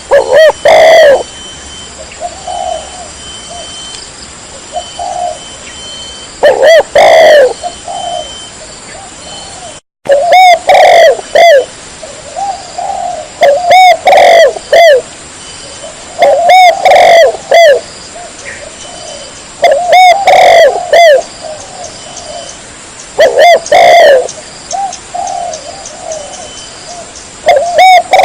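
Spotted dove (chim cu gáy) cooing: about eight loud phrases of low, arching coos repeated every few seconds, with softer coo notes between them. The sound cuts out for an instant about ten seconds in.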